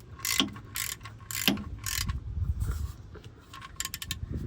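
Socket ratchet clicking in repeated short strokes, tightening an oil drain plug.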